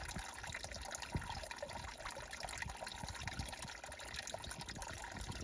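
Water from a small trailside spring trickling into a shallow pool, a steady faint trickle dotted with tiny drips.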